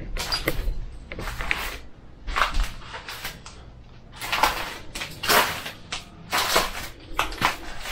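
An old broken door being moved by hand: a string of short scraping knocks, about one a second.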